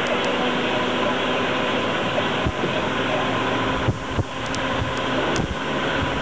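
Steady road and engine noise inside a moving car, picked up by a camcorder's microphone, with a couple of low thumps about halfway through.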